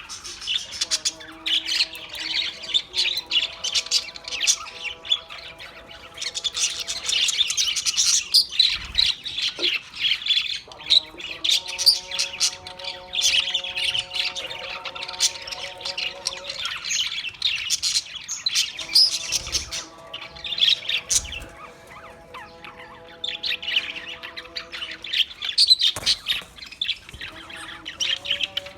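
A flock of small Australian parrots chattering: a dense, continuous mix of high chirps and squawks. A few steady, held low tones sound underneath at times.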